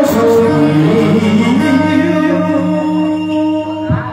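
Live singing of a Vietnamese duet with electric keyboard backing. A voice holds long sung notes over the accompaniment.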